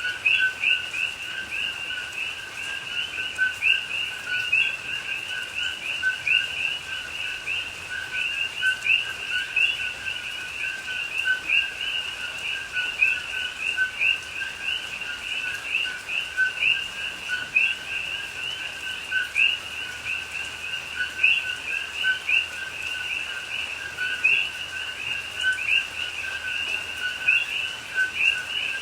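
A dense chorus of many coqui frogs calling over one another without pause. Each call is a short lower 'co' followed by a higher, rising 'qui', the calls overlapping into a constant pulsing din.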